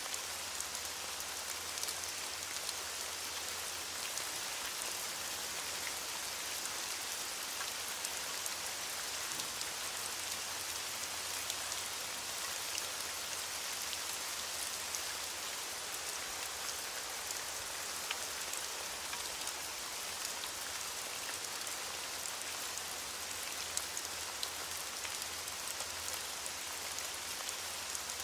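Steady, heavy rain falling on a surface, a continuous hiss with many fine individual drop ticks.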